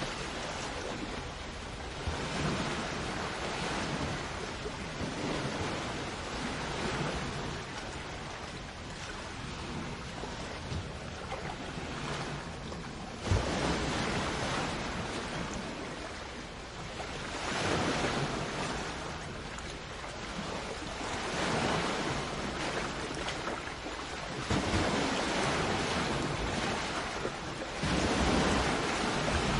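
Sea waves washing onto a shore, a steady wash that swells and ebbs every few seconds, with one sharp wave break about halfway through. Some wind noise on the microphone.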